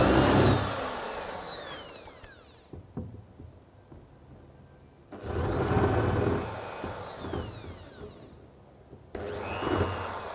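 Electric drill boring a bolt hole into a wall, run in three bursts. Its motor whine falls away as it spins down after each burst, and it holds steady for a moment in the middle one.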